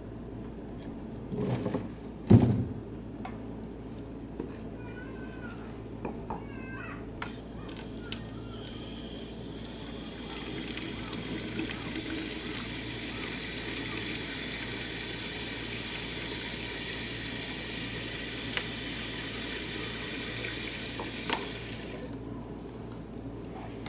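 Oak and beech wood fire crackling in a barbecue grill, with scattered sharp pops. There is a loud knock about two seconds in, and a steady high hiss from the fire comes in about ten seconds in and cuts off near the end.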